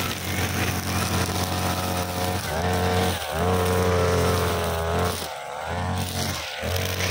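Petrol brushcutter engine running at high revs while its nylon line cuts thin, soft grass. The throttle is let off briefly about three seconds in, again for about half a second after five seconds and once more near the end, each time dropping in pitch and level before picking back up.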